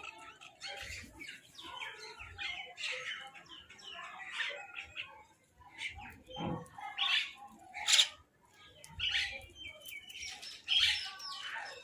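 Crows and mynahs calling over one another in a string of short, irregular calls, the loudest about eight seconds in.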